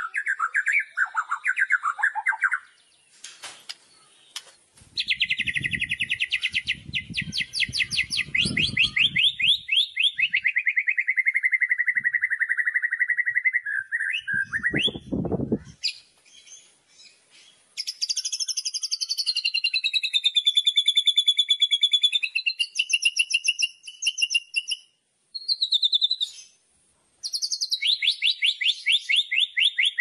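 White-rumped shama singing loud, rapid rattling trills ("kretekan") phrase after phrase, with short pauses between them; some phrases slide down in pitch. A low rumble runs under the song for a few seconds about a third of the way in, and a dull thump comes about halfway.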